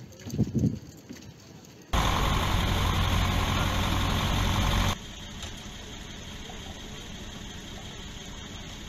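Parked buses' diesel engines idling with a steady drone. The drone cuts in loud about two seconds in and drops to a quieter steady hum after about three seconds. Brief voices sound in the first second.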